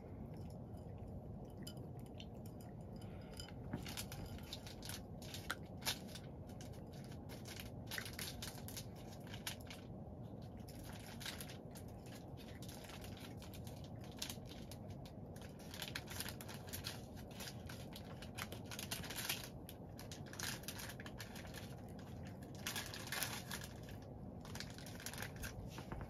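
A cat crunching dry kibble from a bowl: irregular crisp crunches and clicks as it chews, over a steady low background hum.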